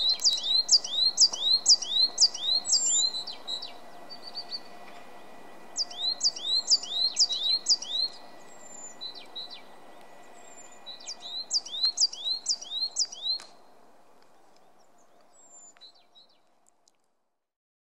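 Coal tit singing: three bursts of a high, repeated two-note phrase, about two phrases a second, with a few faint single calls between the bursts. The sound fades out near the end.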